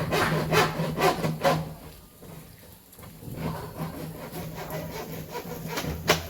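Stripped copper wire ends scraping and rubbing as they are twisted together by hand into a joint: four sharp strokes about two a second at the start, then fainter scratching, and one sharper knock near the end, over a faint steady low hum.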